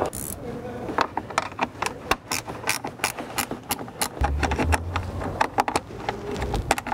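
Irregular clicks and taps of a metal pick and fingers working at plastic bumper trim and its retaining clips. A low hum comes in about four seconds in.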